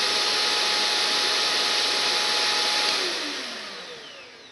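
Electrolux The Boss Stairmaster bagged upright vacuum cleaner running with a steady whine, then switched off about three seconds in, its motor winding down with falling pitch. It sounds like the drive belt slipping on a jammed brush roll, which the owner takes for a seized brush roll that has made the belt smoke.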